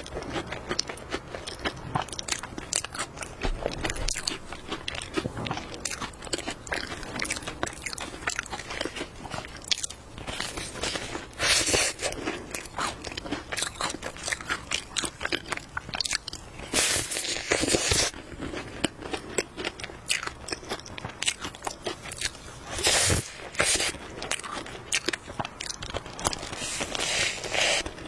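Close-up eating of flaky-crusted cream puffs: the crisp pastry shell crunches and crackles under bites, with steady chewing. There are several louder crunching bursts along the way.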